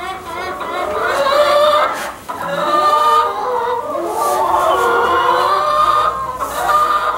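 Hybrid laying hens clucking and squawking, several drawn-out calls overlapping, with one short knock about two seconds in.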